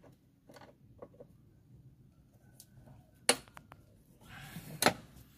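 12 mm ring spanner working a tight seat-mounting bolt, with faint metal clicks and two sharper clicks a second and a half apart.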